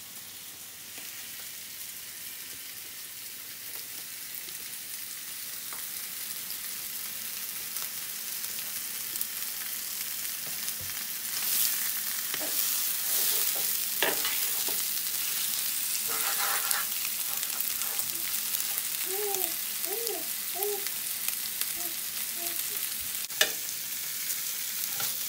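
Large black tiger shrimp frying in melted butter in a pan: a steady sizzling hiss that slowly grows louder, with a couple of sharp clicks of a utensil against the pan.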